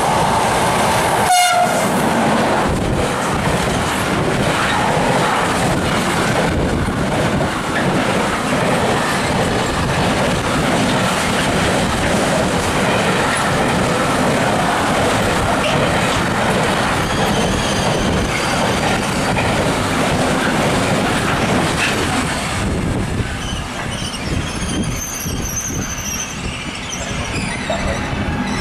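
Intermodal freight train of trailer-carrying wagons rolling past close by, a steady loud rumble and clatter of wheels on rail, with a short falling tone about a second in. The rumble drops away at about 23 seconds as the last wagons pass, leaving faint high-pitched wheel squeals.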